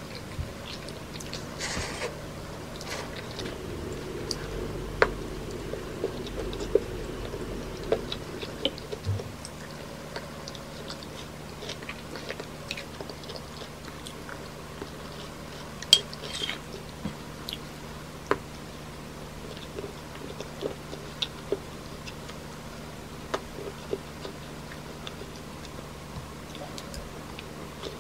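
A person eating: chewing and biting, with scattered sharp clicks of a metal fork and spoon against a ceramic plate and bowl.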